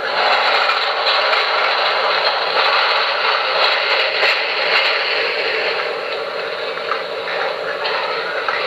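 Diesel locomotive sound effects from a QSI Maxx Traxx model-train sound unit, played through a small speaker: a steady, rough, tinny noise.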